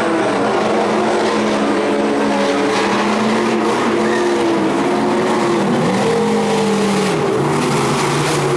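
Several dirt-track stock car engines running together as the pack circles the oval, their overlapping pitches rising and falling as the cars lift and accelerate.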